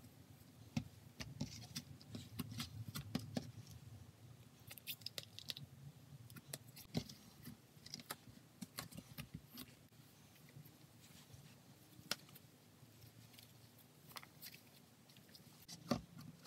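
Cloud cream slime being squeezed and pressed by hand, giving quiet, irregular clicks and small air pops.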